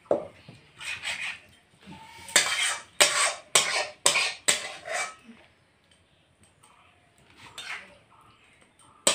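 Metal spatula scraping the inside of a metal kadai and knocking against a steel bowl while cooked curry is scraped out. There is a quick run of sharp scrapes and knocks through the first five seconds, then a couple more near the end.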